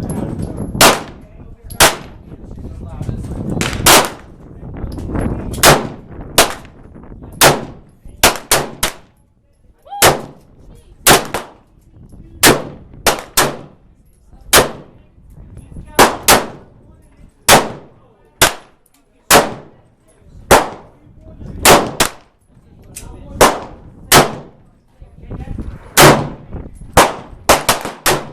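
Gunshots at a shooting range: about thirty sharp reports at irregular intervals, some coming two or three in quick succession.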